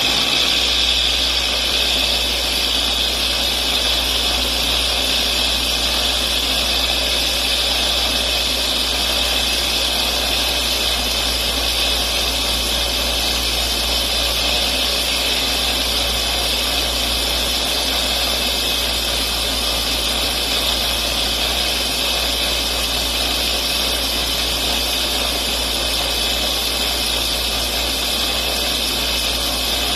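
Bench buffer running steadily, its 4-inch buffing wheel spinning while a tobacco pipe stem is buffed with rouge: a constant motor hum under a loud even whir.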